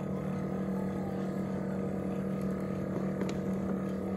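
Ninja coffee maker's built-in milk frother running steadily with a low hum, whisking creamer in a cup to whip it into foam.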